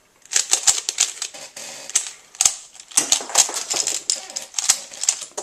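Rapid, irregular clicking and clacking of a Rubik's cube's plastic pieces being handled.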